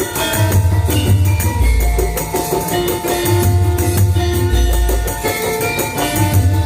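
Javanese gamelan accompaniment playing: held metallic notes over busy percussion, with a deep low stroke about every three seconds.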